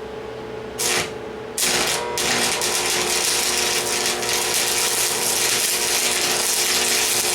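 Power tool working steel: a short burst just under a second in, then from about a second and a half a loud, continuous noise that keeps going.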